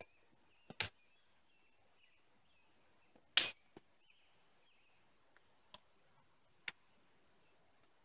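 Wood knocking and snapping as sticks and bark are set on a lean-to shelter: a handful of sharp, separate knocks, the loudest about three and a half seconds in.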